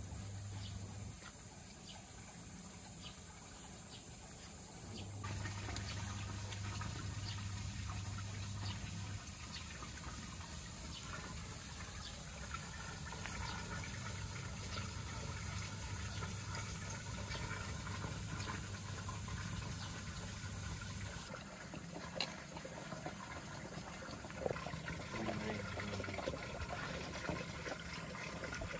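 Open wood fire crackling, a steady hiss with scattered small pops, under bamboo cooking tubes.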